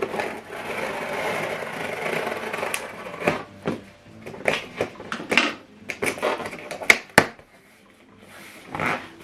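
Cardboard packaging of a soundbar being opened and handled: a continuous rustling scrape for about the first three seconds, then a string of sharp knocks and clicks.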